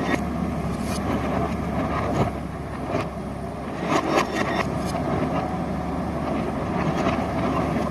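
Diesel engine of a JCB 3DX backhoe loader running steadily while it works, with scattered metallic clanks and knocks, most of them in the first half.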